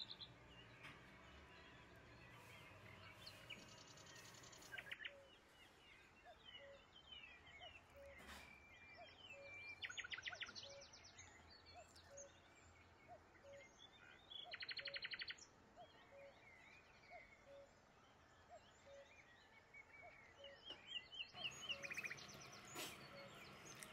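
Faint birdsong: short rapid trills and chirps every few seconds, with a soft note repeated about once a second through the middle.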